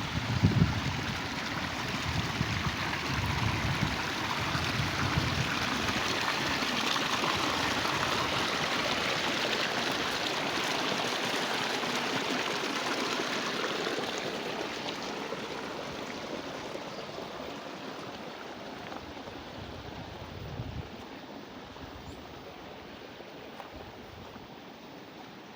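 Water running along an irrigation channel, a steady rushing that grows fainter through the second half. A few low thuds sound at the very start and once more near the end.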